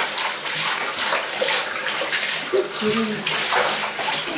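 Water running and splashing in a bathtub as a cat is washed in it, a steady hiss with uneven surges.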